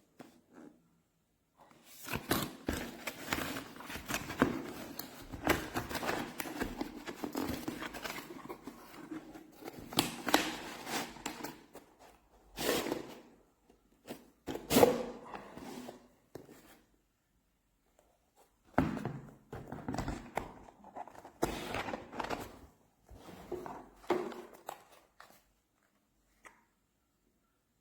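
Irregular clicks, knocks and rattles of small hard objects being handled, in a dense run of taps followed by shorter separate clusters.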